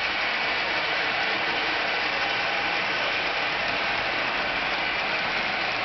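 N scale passenger train with Precision Craft E7 locomotives running along the track close by: a steady whir of the models' motors and wheels on the rails.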